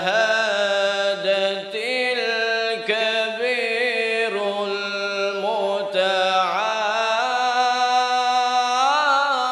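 A man's melodic Quran recitation (tilawah), holding long drawn-out notes with wavering ornaments and pitch turns.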